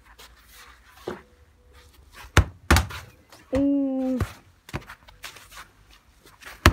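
A football kicked with a sharp thud about two and a half seconds in, with a second thud just after as it strikes something; a brief held cry follows, and another sharp thud comes near the end.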